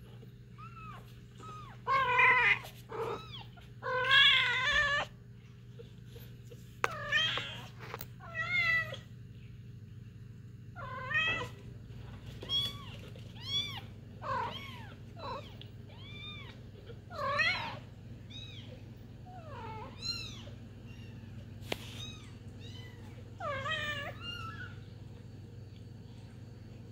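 Young kitten mewing over and over: a string of short, high calls, each rising and falling in pitch, the loudest and most strained ones in the first few seconds.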